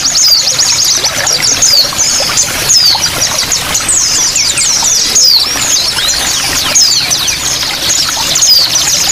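Small songbirds singing in rapid high trills and quick downward-swooping chirps, several voices overlapping, over the steady sound of running, trickling water.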